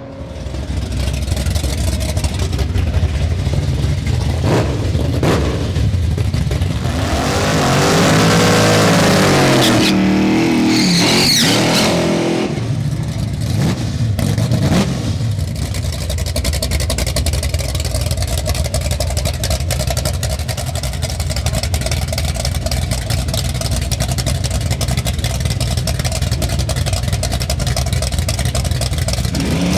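Drag race cars' engines running loud, their revs rising and falling about eight to twelve seconds in. From about halfway, a steady idle as the cars sit staged at the starting line.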